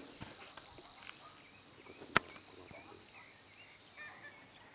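Faint outdoor ambience with scattered distant bird chirps and a thin steady high tone that fades out a little over a second in. One sharp click a little past two seconds in.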